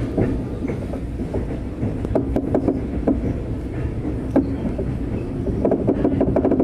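V/Line passenger train running on the track: a steady rumble of wheels on rail, with irregular sharp clicks as the wheels pass over rail joints.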